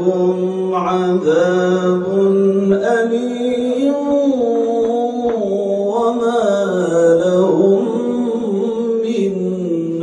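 A man's solo Quran recitation in the melodic chanted style, with long held notes that slide slowly up and down in pitch.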